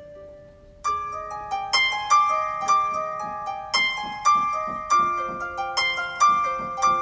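Background music of plucked notes, soft for the first second, then louder and busier, with a new note every fraction of a second.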